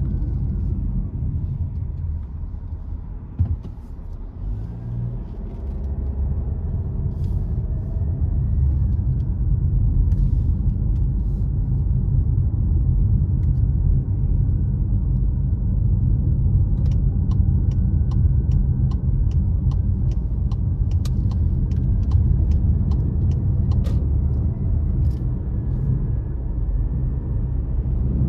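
Car driving: steady low rumble of engine and tyres. A single knock comes about three seconds in, and a run of even ticks, about two a second, runs through the second half.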